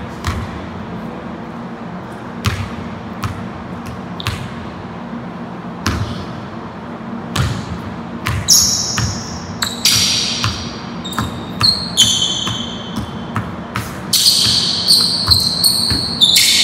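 A basketball being dribbled on a hardwood gym floor, irregular bounces echoing in the hall. From about halfway through, sneakers squeak sharply on the floor as the players cut and defend.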